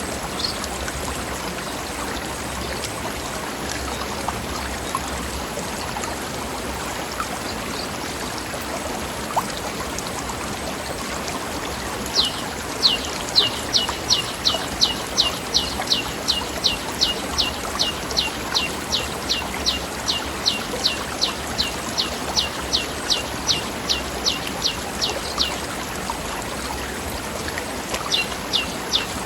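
Stream rushing and babbling over rocks, a steady watery hiss. About twelve seconds in, a bird starts a long, even series of high, quickly falling chirps, about three a second. It stops a few seconds before the end and starts again just before the end.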